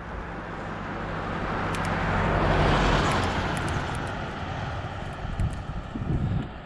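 A motor vehicle passing close by on the road: engine hum and tyre noise swell to a peak about three seconds in, then fade.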